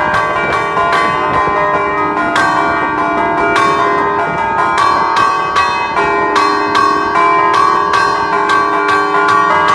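A set of three bronze church bells in E-flat, cast by De Poli in 1947, chimed by hand while hanging still: chains pulled on their clappers strike about three times a second in a steady rhythmic pattern, the Friulian scampanotada. The tones ring on and overlap.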